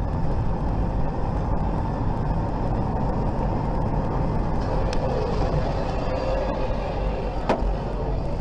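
Steady road and engine noise of a car cruising at highway speed, picked up by its dashcam, with a single brief click about seven and a half seconds in.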